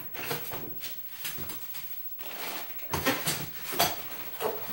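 Plastic-bagged kit parts being handled in a styrofoam packing tray: bags crinkling and parts rubbing and knocking against the foam. Quieter about a second in, then busier and louder from about three seconds in.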